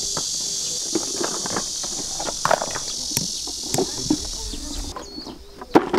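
Hammer tapping a nail into the dirt: a handful of irregular sharp knocks. Under it, a steady high insect buzz that cuts off about five seconds in, and faint voices.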